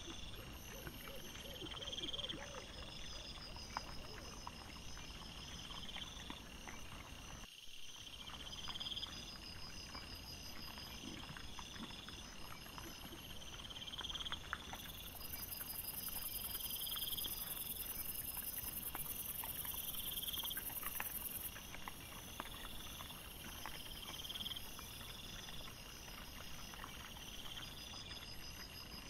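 Night insects chirping in short trills that repeat about every second and a half, joined by a higher, steady buzz in the middle stretch, over faint scattered clicks and rustles. The sound cuts out for a moment about a quarter of the way through.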